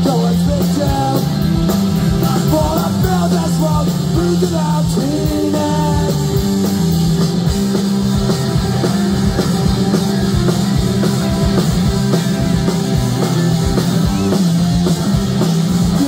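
A live punk rock band playing at full volume: electric guitars, bass guitar and a drum kit, driving and steady.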